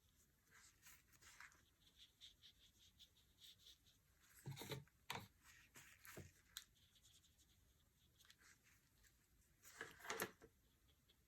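Faint, short strokes of a watercolour brush tip rubbing on paper as colours are blended, with a few soft knocks about four to six seconds in and again near ten seconds.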